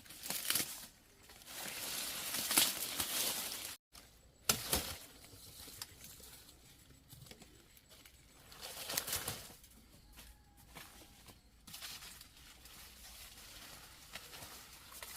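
Intermittent rustling and crinkling from handling, in several bursts, loudest in the first few seconds and again about nine seconds in.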